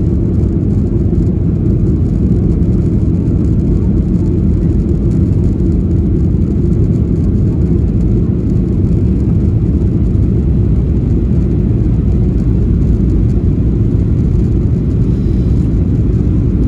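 Cabin noise inside a Boeing 737-800 airliner: a steady, loud low rumble of its CFM56-7B engines and airflow.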